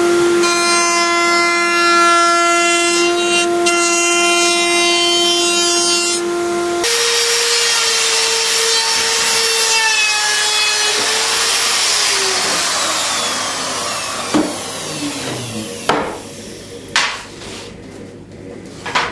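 Woodworking power saw running with a steady whine, then cutting into a pressed plywood skateboard deck blank about seven seconds in; its motor then winds down in falling pitch, followed by a few knocks.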